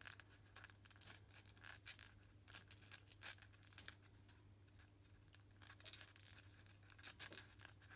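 Faint, irregular scratching of a scalpel blade scoring lines into extruded polystyrene foam, over a faint steady low hum.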